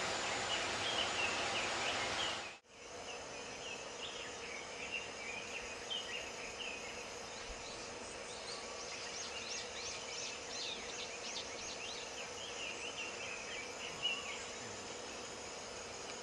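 Steady rush of falling water from a waterfall, with many short, high chirping calls scattered over it. The sound cuts out for a moment about two and a half seconds in.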